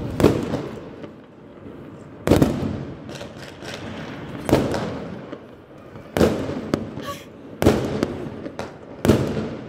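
Aerial fireworks going off: six sharp bangs about one and a half to two seconds apart, each trailing off, with smaller pops in between.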